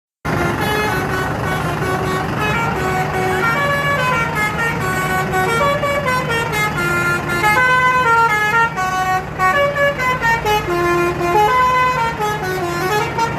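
Basuri 'telolet' multi-tone bus horn playing a quick tune, its notes stepping up and down several times a second, over a steady low hum.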